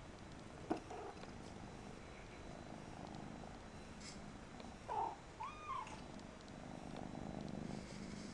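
Steady soft purring, with a sharp click about a second in and a few short squeaky chirps a little past halfway.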